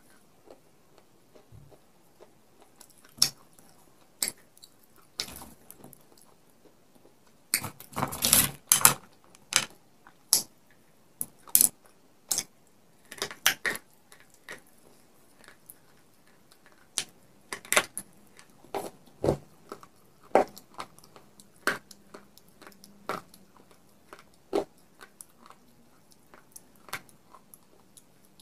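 Irregular sharp cracks and crunches of a chalk-coated baked clay ball being picked apart with a thin metal tool and bitten, with a dense run of crunching about eight seconds in.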